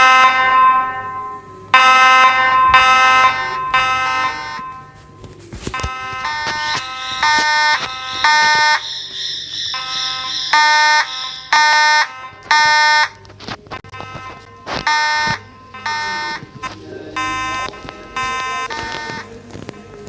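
Several fire alarm horns sounding in pulses that overlap one another. A couple of long blasts come first, then quicker, shorter pulses, with a higher tone joining in for a few seconds midway.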